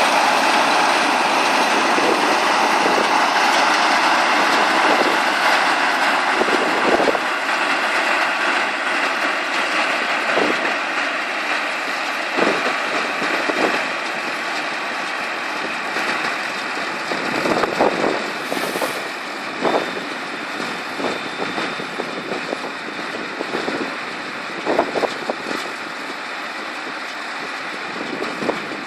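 Samwon SRB100 round baler running behind its tractor: a steady mechanical din with irregular knocks and clanks, slowly getting quieter.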